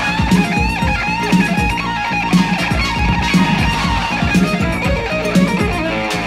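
Instrumental music from a vinyl record: electric guitar lines over a steady beat with bass, the beat landing about once a second.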